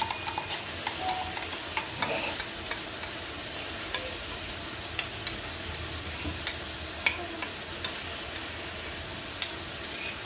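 Chicken pieces frying in hot oil in a pan, a steady sizzle with scattered sharp pops and clicks.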